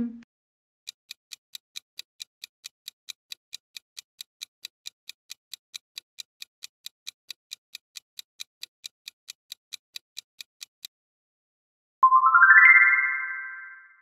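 Clock-ticking timer sound effect, about four sharp ticks a second for some ten seconds, marking the time to think. Near the end comes a bright chime that rises in pitch and rings out.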